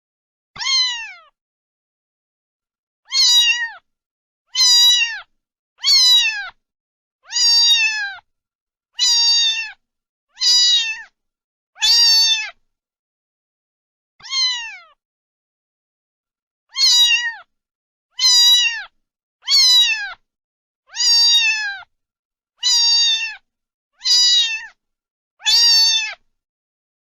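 Domestic cat meowing over and over: about sixteen short meows, each dropping in pitch at the end, with dead silence between them.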